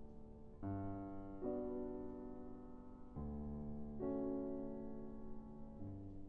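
Soft background piano music: slow, sustained chords that change every second or so over a low bass note.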